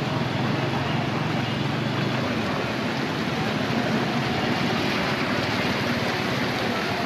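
Steady rushing and sloshing of ankle-deep floodwater as a vehicle moves through a flooded street, with a low steady hum for the first couple of seconds.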